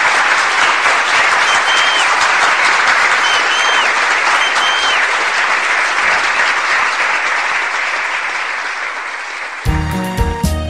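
An audience applauding steadily, the clapping slowly fading. Music starts near the end.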